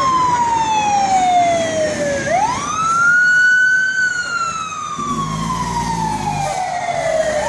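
Fire engine siren wailing: the pitch slides slowly down, sweeps quickly back up about two seconds in, then slides down again and starts rising near the end. About five seconds in, the truck's engine rumbles low as it drives past.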